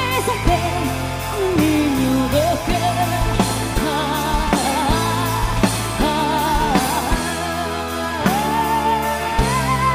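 A woman singing a melody with vibrato and held notes over a band's accompaniment.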